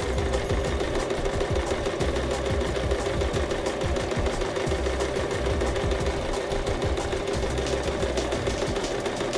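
Electric household sewing machine stitching through cotton fabric, its motor humming steadily under a rapid, even ticking of the needle.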